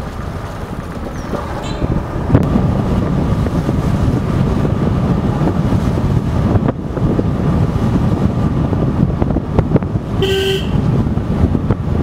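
Steady wind buffeting and road rumble from riding in a moving vehicle, with a short vehicle-horn honk about ten seconds in.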